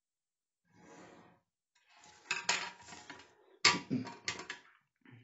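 A clear plastic ballpoint pen and a wooden ruler being set down and shifted on a glass tabletop: a run of sharp clicks and clatters, the loudest knock about three and a half seconds in. It follows a faint scratch of the pen drawing on cardboard about a second in.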